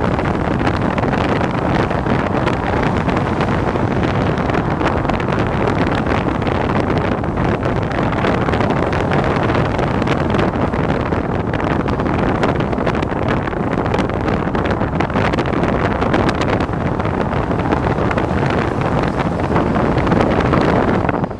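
Steady wind rush over the microphone mixed with the road and engine noise of a moving vehicle.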